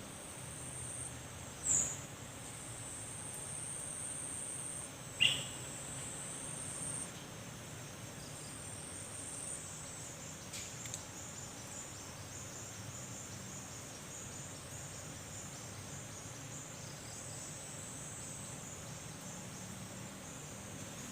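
Insects chirring in a high, steady drone that starts and stops in long stretches, with two short falling chirps about two and five seconds in.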